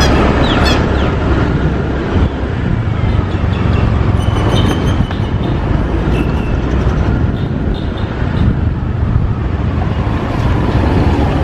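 Riding on a motorbike: steady wind rumble on the microphone mixed with the bike's engine and traffic noise.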